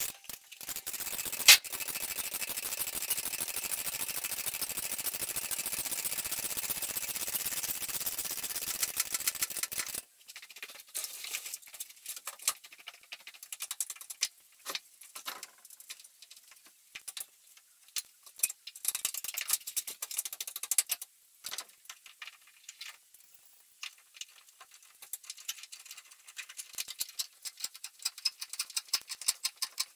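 Roof-framing work sped up eight times: a steady hiss with one sharp click, cutting off abruptly about ten seconds in, then a rapid, irregular scatter of clicks and knocks from the work, growing busier near the end.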